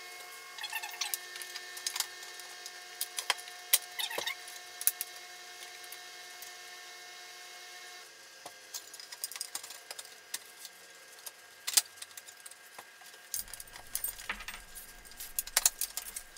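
Scattered clicks, taps and light rattles of small parts being handled as recessed LED light fittings and their wiring are fitted into a wooden shelf. A faint steady hum runs under the first half and cuts off suddenly about halfway through.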